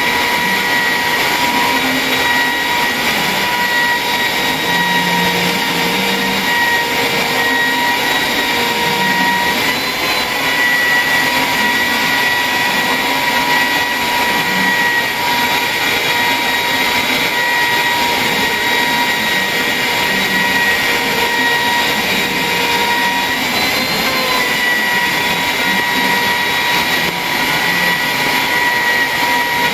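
CNC router spindle running at high speed while its bit cuts wood: a steady high-pitched whine over a dense cutting hiss. The pitch wavers briefly twice as the load on the bit changes.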